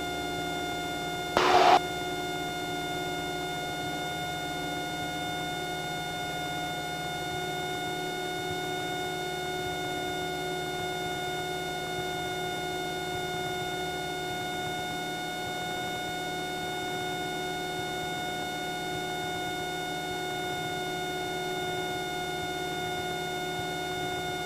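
Cessna 172's piston engine and propeller running steadily at full power in the climb-out just after takeoff, heard inside the cockpit as an even drone of unchanging pitch. A short louder burst cuts in about a second and a half in.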